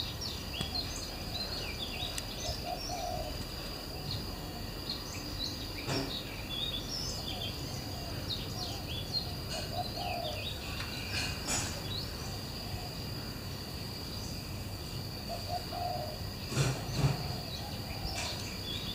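Garden birdsong: a dove's low cooing phrases repeat every few seconds among scattered high chirps of small birds, over a steady high insect drone. Two low knocks sound near the end.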